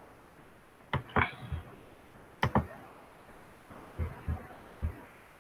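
Faint computer mouse clicks, about eight in small groups, made while a slide presentation is brought up for screen sharing.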